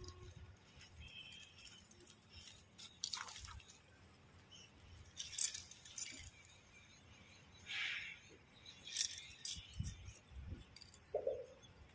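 Quiet handling sounds of a handline being cast from a plastic bottle spool: light clicks and rustles, with a few short soft swishes around the middle as the baited line is thrown out over the water.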